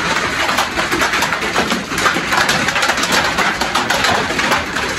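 Heavy rain on a corrugated metal roof overhead: a loud, dense, steady patter of countless small hits.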